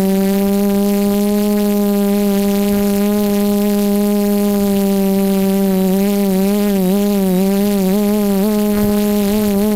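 FPV multirotor drone's electric motors and propellers humming loudly as it hovers, picked up by its onboard camera. About six seconds in, the pitch starts to waver up and down.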